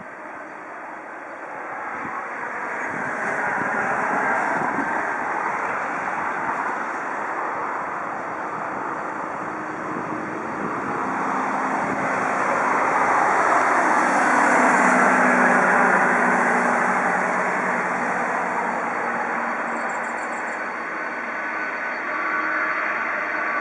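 Boeing 747-400's four jet engines at taxi power as the airliner rolls slowly along the runway: a steady rushing whine that swells twice and is loudest about two-thirds of the way through.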